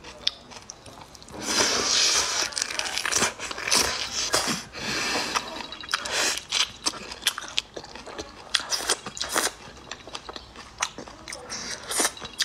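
Close-up mouth sounds of eating whole marinated shrimp. There is a few seconds of wet sucking from about a second and a half in, then many sharp crunching and smacking clicks as the shells are chewed.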